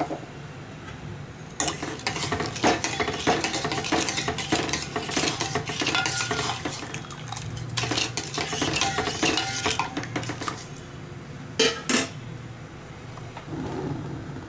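Metal spoon stirring sugar into liquid in a stainless steel saucepan, scraping and clinking against the pan's base and sides in a quick, continuous rattle that stops about ten seconds in. Two sharp clinks follow shortly after.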